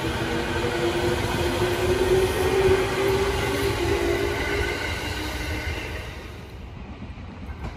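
JR 209-series electric commuter train pulling away on the next track: its motors give a slightly rising whine over the rumble of wheels on rail. The sound is loudest about three seconds in and fades away after about six seconds.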